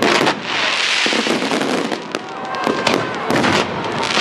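Fireworks going off close by: a dense crackling hiss with many sharp bangs and pops in quick succession.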